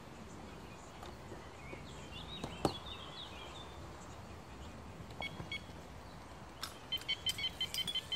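Electronic carp bite alarm beeping: a couple of short beeps about five seconds in, then a rapid run of beeps near the end as a fish takes line. A bird chirps a few times around two to three seconds in.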